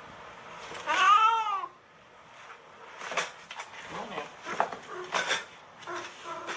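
A cat suspected of having rabies gives one loud, drawn-out yowl about a second in, its pitch rising and then falling. This is followed by a run of knocks and scrapes as it moves about inside a plastic pet carrier.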